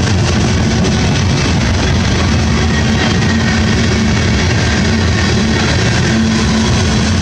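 Freight train of tank cars rolling past close by: a loud, steady rumble and clatter of steel wheels on the rails.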